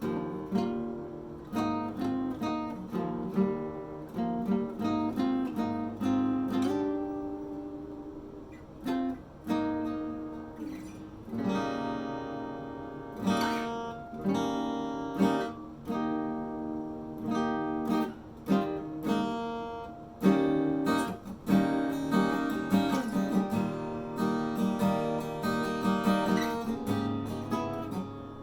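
Small-body Yamaha FS800 acoustic guitar, strung with Santa Cruz low-tension strings over a bone saddle, being played. Picked single notes run into strummed chords that ring on between strokes.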